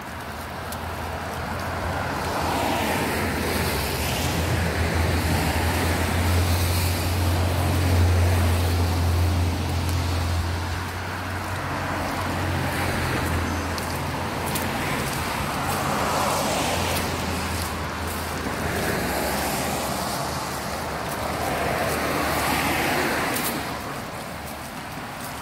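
Road traffic on a wet street: cars passing with tyre hiss, and a low engine rumble that swells to its loudest a third of the way in and fades out by two-thirds through.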